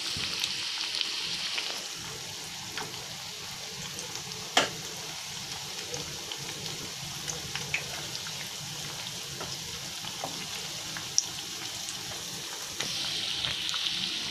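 Corn and potato kebabs on sticks deep-frying in hot oil on a medium flame: a steady sizzle, stronger near the start and again near the end. A few sharp knocks of a wooden spatula against the pan cut through it, the loudest about four and a half seconds in.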